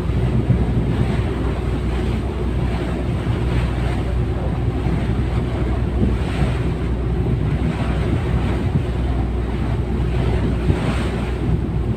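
Strong wind buffeting the microphone over the sound of sea waves, with soft swells of surf every few seconds.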